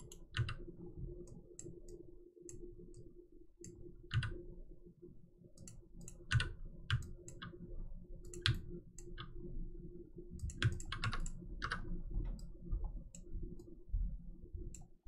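Computer mouse and keyboard clicks, scattered and irregular, with a quick run of several around two-thirds of the way through, over a steady low hum.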